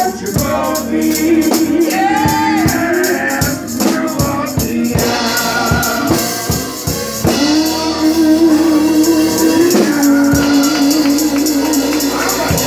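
Live gospel singing through a microphone, with long held notes, backed by a choir and shaken percussion keeping a steady beat.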